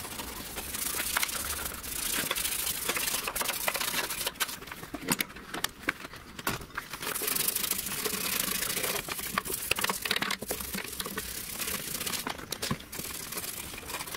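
A small brush scrubbing petrol over a car body's steel wheel arch to wash off Movil anti-corrosion wax: irregular scratchy rubbing strokes with frequent small clicks. A plastic petrol bottle crinkles in the hand.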